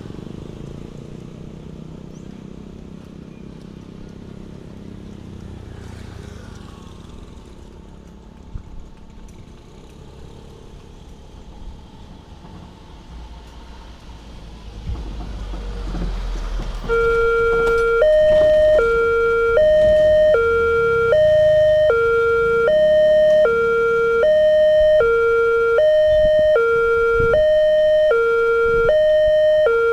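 A low rumble of passing road vehicles, then a little past halfway a railway level-crossing warning siren cuts in loudly. It alternates between a low and a high tone, each held under a second, signalling that a train is approaching and the crossing gates are closing.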